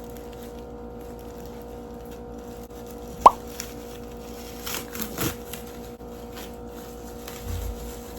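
A single short pop that sweeps quickly up in pitch about three seconds in, then soft rustling of packaging and a low thump near the end, over a steady faint hum.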